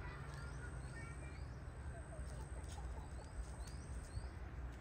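Chickens faintly clucking, with short high rising chirps repeating about once a second, over a steady low rumble.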